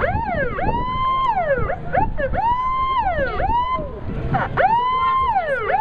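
Siren of a 1987 Hino / Unipower Stryker airport crash tender responding, repeatedly sweeping up, holding briefly and falling about once a second, over the low rumble of the truck.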